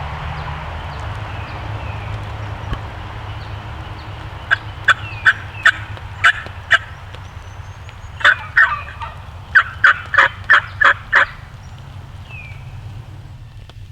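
Wild turkey calling: two runs of short, sharp yelp-like notes, about three a second, the first of about six notes and the second of about nine, over a steady low rumble.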